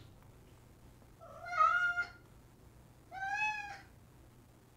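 A pet cat meowing twice, about a second apart, each call lasting under a second; the second call rises and then falls in pitch.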